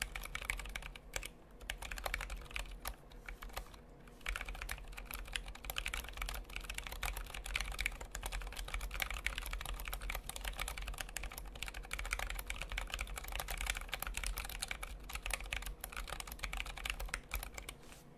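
Fast, continuous typing on a Tokyo60 60% mechanical keyboard with Zealios 67g tactile switches lubed with Krytox 205g0 and GMK Dots keycaps, with brief lulls about a second and a half in and about four seconds in.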